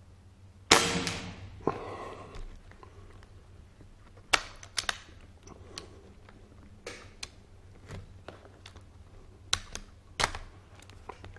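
A single shot from a BSA Scorpion SE .22 pre-charged pneumatic air rifle about a second in: one sharp report that rings on briefly. Several lighter clicks and knocks follow, spread over the next nine seconds, as the rifle is handled.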